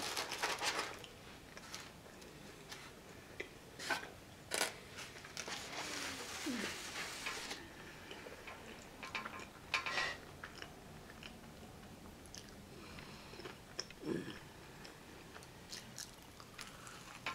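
Chewing on a fried onion ring, with a few sharp crunchy bites.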